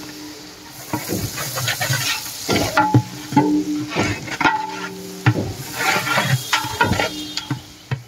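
Sliced onions sizzling as they fry in oil and ghee in a large metal cooking pot, stirred with a long metal ladle. The ladle scrapes and knocks against the pot about a dozen times, and each knock leaves the pot ringing briefly.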